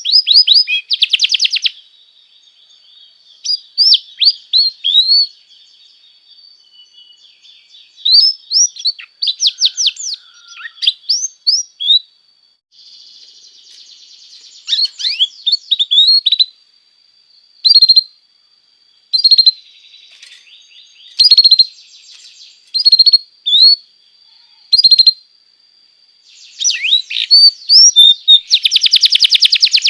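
Domestic canary singing: bursts of quick, high chirps and rolling trills separated by short pauses, over a thin held high note, ending in a long, fast trill.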